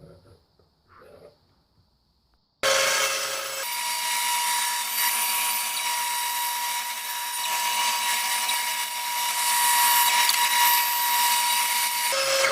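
Power tool cutting a swamp white oak blank, starting abruptly a few seconds in and running steadily for about nine seconds, with a steady whine through the cutting noise.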